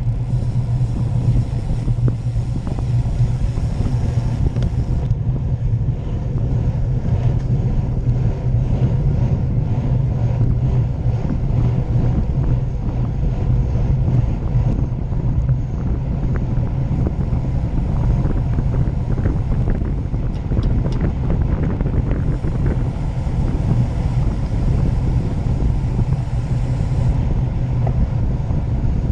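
Steady wind rush on the microphone of a bicycle's action camera at racing speed, mixed with the low rumble of the tyres on the road and a few faint ticks.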